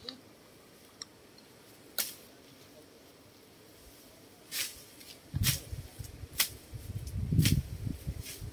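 Someone pushing through tall grass and brush: a few scattered sharp snaps of stems and twigs, then from about five seconds in a run of low thuds and rumbling, the loudest part, with more snaps among them.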